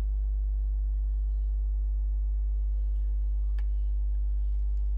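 Steady electrical hum with a row of overtones, unchanging throughout, and a single short click about three and a half seconds in.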